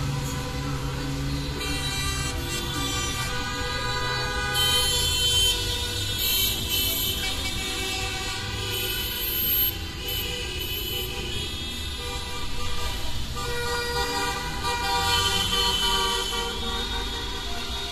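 Many car horns honking at once in overlapping long blasts at several pitches over the rumble of street traffic: celebratory horn honking from a car parade.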